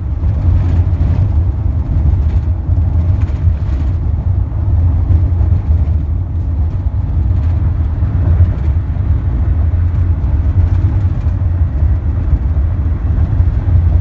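Road noise inside a car cruising at highway speed: a loud, steady low rumble of engine and tyres.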